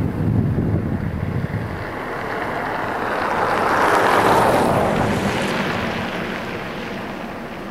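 Wind blowing across the microphone, rumbling at first. A gust then swells into a rushing hiss about three to five seconds in and dies away.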